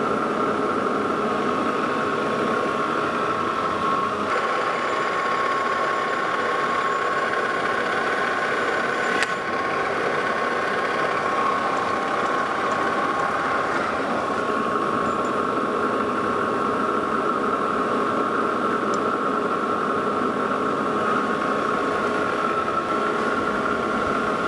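Metal lathe running with a steady mechanical hum and whine while a boring bar cuts the inside of a steel ring. There is a single sharp click about nine seconds in.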